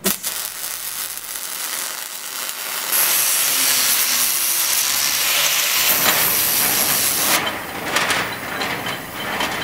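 Arc welding on a steel plate dumbbell, crackling and hissing as the steel collar is fillet-welded onto the handle. Near the end it gives way to an aerosol spray can hissing as matte black paint goes on over the fresh weld.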